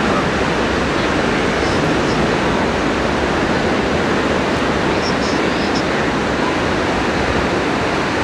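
Ocean waves breaking and washing ashore, a steady, unbroken rush of surf noise.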